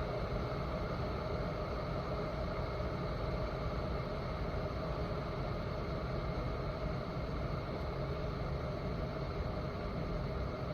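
A 1500 W borosilicate-glass electric kettle (Peach Street Speed-Boil) heats water just short of the boil, giving a steady, even noise.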